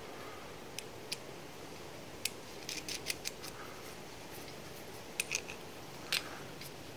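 Faint, irregular small metal clicks and ticks as a wire's ring terminal and nut are fitted by hand onto the terminal stud of a starter solenoid, with a few in quick succession a little before the middle.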